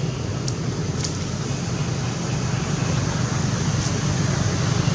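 Steady low rumble with an even hiss over it, outdoor background noise, with two brief high clicks or chirps about half a second and a second in.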